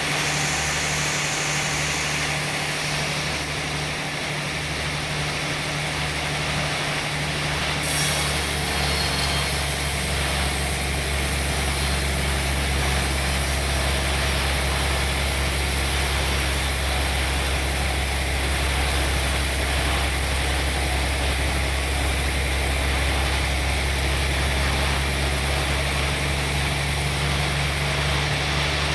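Sawmill machinery running with a steady engine drone; about eight seconds in, the low note grows louder and a higher hiss joins it.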